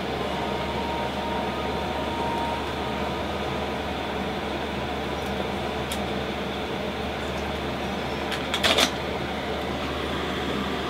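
Steady hum and hiss of a fan running in the room, with a short cluster of clicks about eight and a half seconds in.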